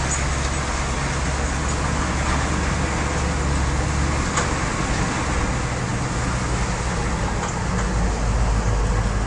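Steady drone of a Chevy K5 Blazer's 6.2-litre diesel engine and road noise, heard from inside the stripped, unlined cab while driving along.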